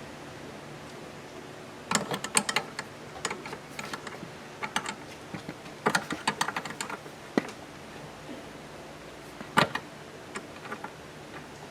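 Socket wrench clicking in short bursts of rapid clicks, with a few single metal taps, while loosening and removing the 15 mm nut that holds the master cylinder to the vacuum booster.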